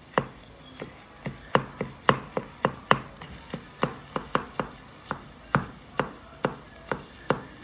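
A kitchen utensil chopping hot dog pieces in a frying pan, its edge knocking sharply against the pan about two to three times a second. The pieces are not cutting through easily.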